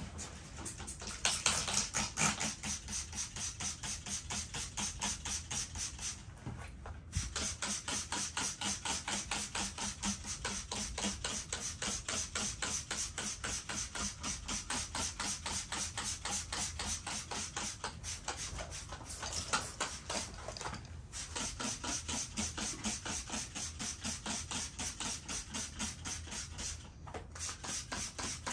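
Hand trigger spray bottle squirting onto carpet in quick repeated strokes, about three or four hissing squirts a second, with a few short pauses.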